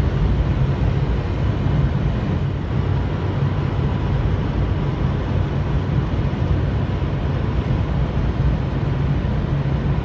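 Steady rumble of a pickup truck carrying a truck camper, heard from inside the cab while driving at road speed in high winds: tyre, engine and wind noise, heaviest in the low end.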